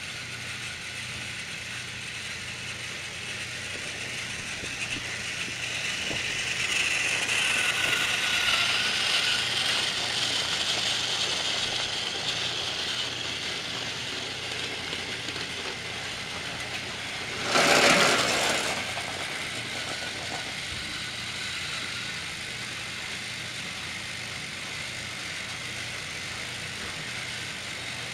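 Battery-powered Trackmaster toy train running on plastic track, its small geared motor whirring and the wheels and trucks rattling, growing louder as it passes close by in the first half. A loud clatter lasting about a second comes near eighteen seconds in.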